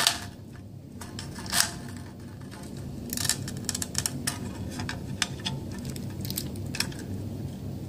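Metal clicks and scrapes of the floor plate being worked loose and slid off a USGI aluminium AR-15 magazine by hand. There is a sharper click about a second and a half in, a cluster of clicks around three seconds in, then lighter ticks.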